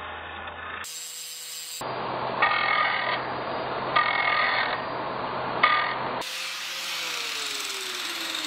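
Handheld angle grinder's abrasive disc grinding the end of a solid metal rod, heard in several short edited cuts with a brighter grinding sound coming and going three times. Near the end a tone falls slowly as the grinder spins down.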